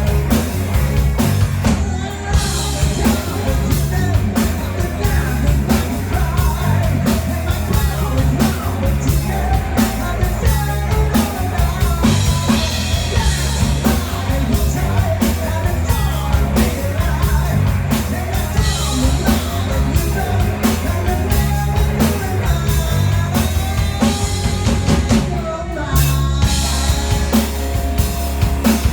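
A live rock band rehearsing: drum kit, bass and electric guitar playing a steady-beat song, with singing.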